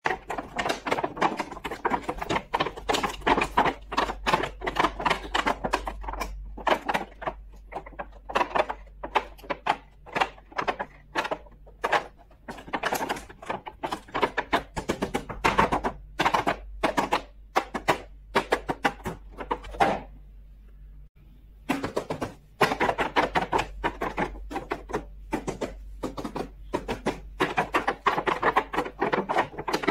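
Small plastic toy pieces and packaging handled close up: a dense run of quick clicks, taps and rattles, broken by a pause of about two seconds about two-thirds of the way through.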